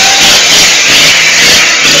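Off-road 4x4's diesel engine running hard under load as it drives through a muddy rut, with a loud, steady engine note.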